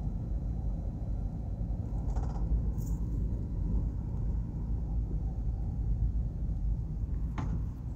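A car driving, heard from inside the cabin: a steady low rumble of engine and road noise, with a few faint brief clicks.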